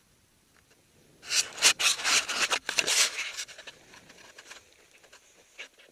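Handling noise: gloves and winter clothing rubbing and scraping right against the body-worn camera's microphone, a harsh irregular rubbing for about two seconds that tails off into a few fainter scratches.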